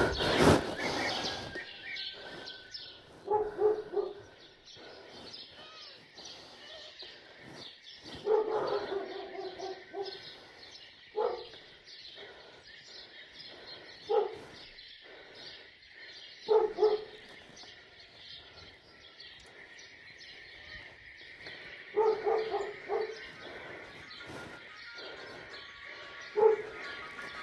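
A dog barking in short bouts, about seven times spread out, with pauses of a few seconds between them.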